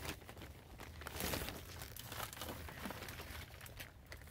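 Potting soil being dropped into and pressed by hand into a plastic seed-starting cell tray: soft, scattered rustling of soil against the plastic.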